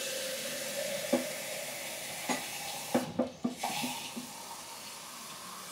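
Kitchen tap running water into a plastic shaker cup, a steady rush with a few light knocks.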